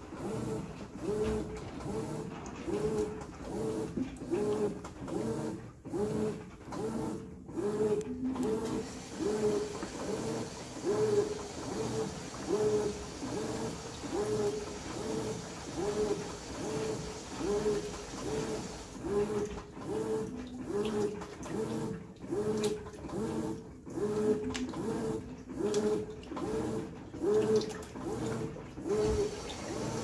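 A Brastemp BWK14 14 kg top-load washing machine agitating a load of towels. The agitator motor hums in a regular back-and-forth rhythm, a little over one stroke a second, over churning water.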